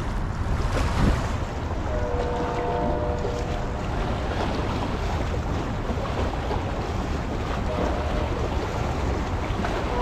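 Wind buffeting the microphone over the steady wash of river water against the shore. A faint held tone of a few notes together sounds for about a second, two seconds in, and again near the end.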